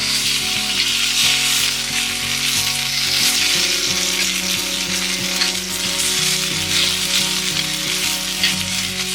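Food sizzling and crackling as it fries in a hot pan.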